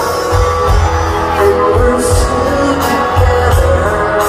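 Live rock band playing loud over an outdoor amphitheatre's PA, heard from within the crowd, with a steady low beat.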